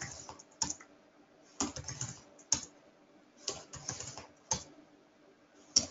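Computer keyboard and mouse clicking in short, irregular clusters of light clicks.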